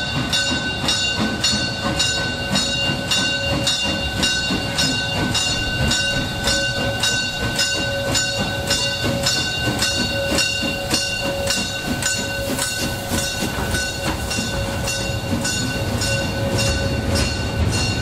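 Bell of the Molli's narrow-gauge steam locomotive ringing in even strokes, about two to three a second, as the train runs slowly along the street track. The low rumble of the locomotive and carriages grows louder near the end as the coaches roll past.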